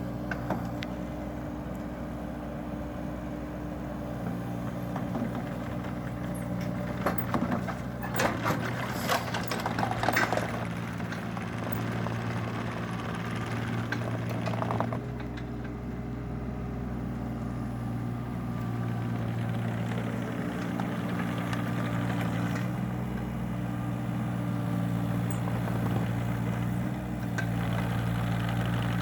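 Mini excavator's diesel engine running steadily, with a run of sharp clanks and knocks about a third of the way through as the machine works.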